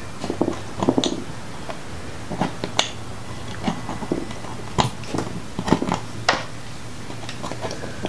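Irregular small clicks, taps and rustles of hands handling wires and a plastic relay socket while working a crimped terminal into it, with several sharper clicks through the middle.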